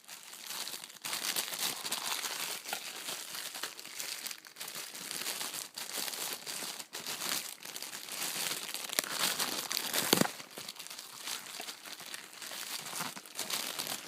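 Plastic packaging being crinkled, crumpled and torn off a coffee machine's drip tray, an irregular run of crackling with sharp little snaps.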